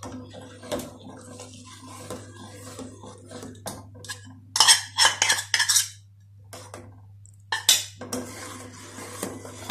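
A metal spoon clinks and scrapes against an aluminium saucepan and a bowl as custard mix is stirred continuously into hot milk. There is a run of louder clinks about halfway through, over a steady low hum.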